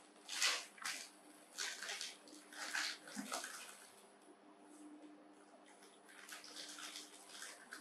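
Crinkling of a plastic snack packet and crunching as dry instant noodles are broken off inside it, in short bursts about once a second, quieter through the middle. A faint steady hum lies underneath.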